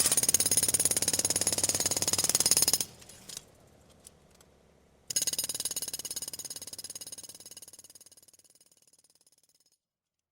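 Rapid, even metallic rattling with a ringing edge, like a machine striking metal many times a second. It stops abruptly about three seconds in, a couple of faint clicks follow, then it starts again about two seconds later and gradually fades out.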